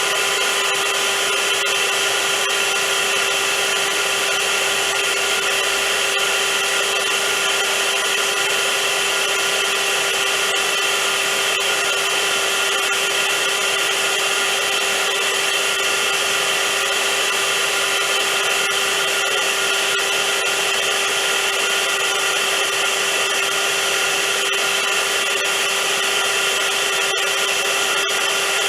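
Vacuum cleaner motor running steadily, a constant whine over a rushing hiss with no change in speed.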